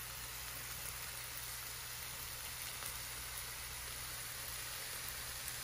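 Sliced vegetables (broccoli, zucchini, squash, onion and mushrooms) sautéing in oil in a nonstick frying pan: a steady, even sizzle.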